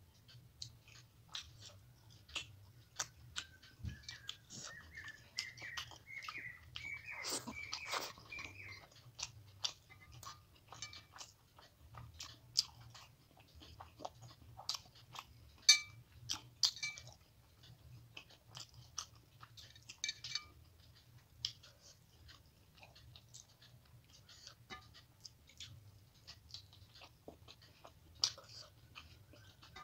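Close-miked chewing and mouth sounds of someone eating rice and fish curry by hand: a long string of short wet clicks and smacks. A high wavering tone runs from about four to nine seconds in.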